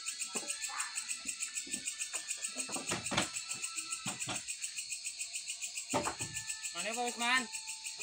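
Night insects chirping in a fast, steady pulse, several chirps a second, with sharp wooden knocks about three and six seconds in as bundles of sawn timber are stacked onto the truck. A short voice calls near the end.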